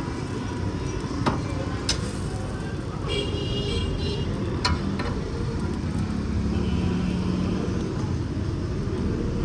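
Steady street traffic rumble, with a vehicle horn sounding briefly about three seconds in and a few sharp clicks.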